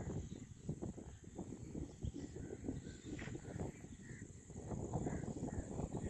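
Rural evening ambience: crickets or similar insects keeping up a steady high chirring over a low, uneven rumble.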